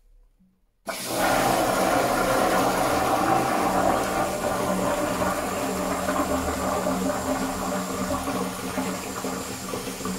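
Toilet flushing: water rushes into the bowl starting about a second in, running loud and steady and easing slightly, then cuts off suddenly at the end.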